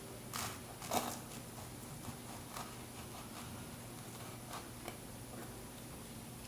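Soft food-handling and utensil sounds: a few light taps and clicks, the loudest about a second in, then scattered fainter ones over a low room hiss.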